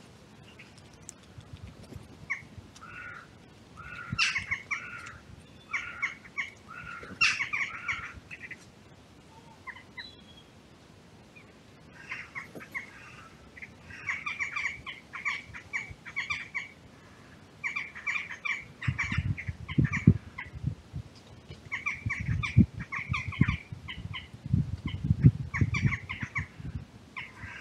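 Corvids calling: clusters of short, harsh caws repeated in quick runs, coming and going throughout. From about two-thirds of the way in, low thumps and rustles join them and make the loudest moments.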